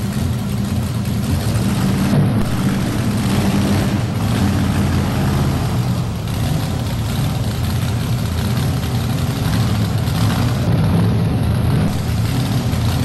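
Supercharged engine of a Ford two-wheel-drive pulling truck running steadily at low speed as the truck moves off after its pull.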